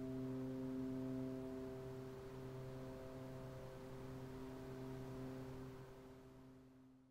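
Faint, sustained musical drone: a low, steady tone with several higher overtones held throughout, gradually fading out near the end.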